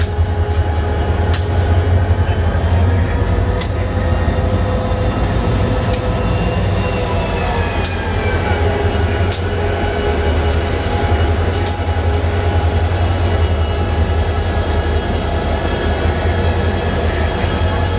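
Diesel locomotive of a CSX local train running in the distance: a steady low rumble with several whining tones that slowly drift in pitch. A sharp click comes every two seconds or so.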